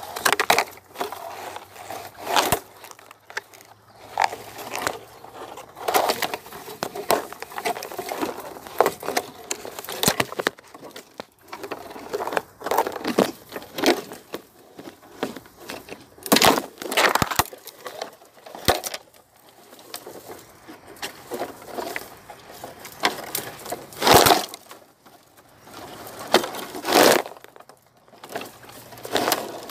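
Dry leaves and twigs crackling, rustling and snapping in irregular bursts as someone moves through dry brush, with a few sharper snaps about 16, 24 and 27 seconds in.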